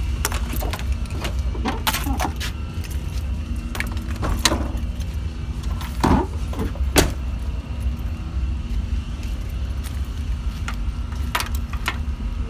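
Scattered clicks, taps and metallic rattles, the loudest pair about six and seven seconds in, from the hood release and latch of a pickup truck being worked to open the hood, over a steady low rumble.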